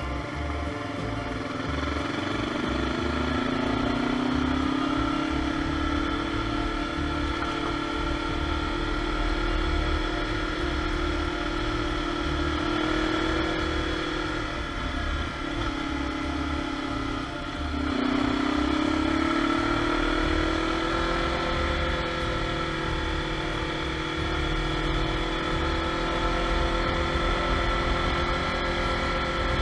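Kawasaki KLE400's parallel-twin engine pulling steadily uphill under throttle, its pitch rising early on. About halfway through the revs drop briefly and then climb again and hold. Low wind noise on the microphone.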